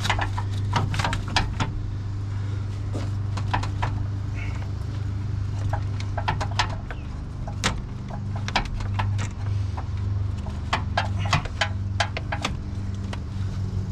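Irregular clicks and clunks of plastic covers and metal AC line fittings being handled and pried as the pickup's AC condenser is worked loose, in scattered clusters, over a steady low hum.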